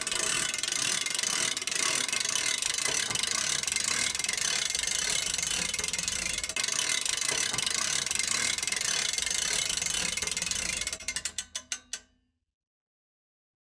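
Sound effect of turning machinery gears: a dense mechanical clatter that breaks into about six separate clicks near the end, then stops.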